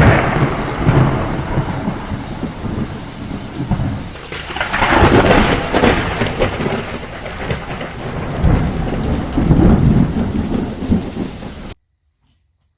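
Heavy rain with rolling thunder that swells several times, then cuts off suddenly near the end.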